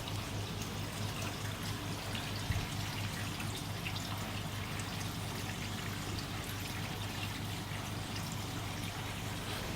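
Water steadily trickling and pouring into a tropical fish pond, with fine dripping splashes over a constant low hum.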